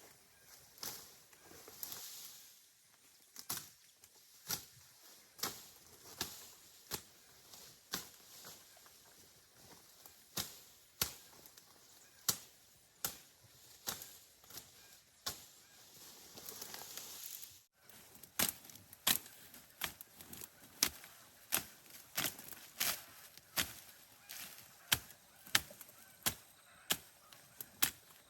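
Hand tool chopping in steady strikes about once a second, quickening slightly after a short break about two-thirds of the way through: the work of clearing vegetation from a pond bank.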